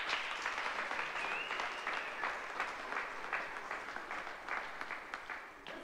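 People clapping their hands in applause, dying away and stopping near the end.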